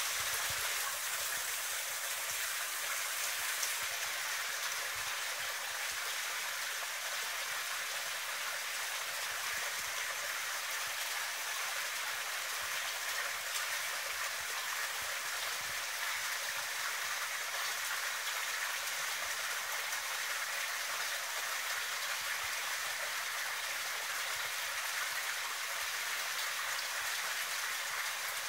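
Water running into a koi pond: a steady splashing trickle that goes on unbroken.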